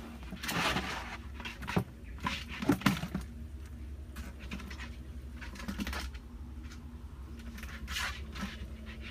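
Hollow plastic jugs being handled and knocked together as a plastic-jug fish trap is tipped and shaken to empty caught fish into a second jug. Irregular scraping and scuffing, with a few sharp knocks about two to three seconds in.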